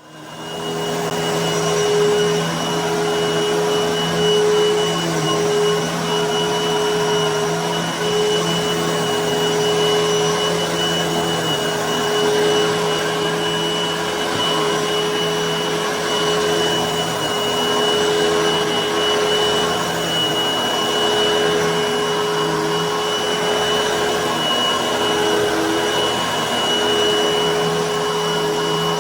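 Hoover vacuum cleaner running over carpet: a steady motor whine over the rush of suction, its pitch wavering slightly as it is pushed back and forth.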